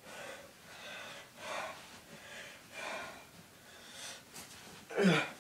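Heavy breathing in short puffs about once a second, then a loud falling vocal cry or grunt near the end.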